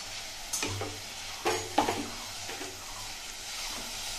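Luchi deep-frying in hot oil in a kadai, with a steady sizzle. A few louder scrapes and clatters of the spatula and ladle against the pan come in the first half; the sharpest is a little under two seconds in.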